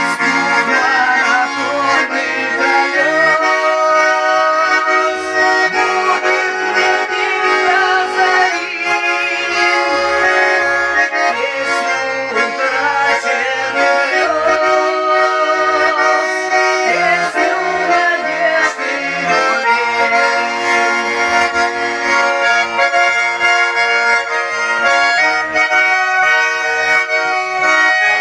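Russian garmon (button accordion) playing the song's melody instrumentally, over a steady repeating bass-and-chord accompaniment.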